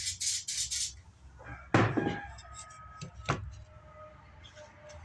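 Aerosol spray adhesive hissing in quick short bursts, about four a second, as a wood block is coated, stopping about a second in. Then comes a loud wooden knock with a short ring as something is set down, and a sharper click a second and a half later.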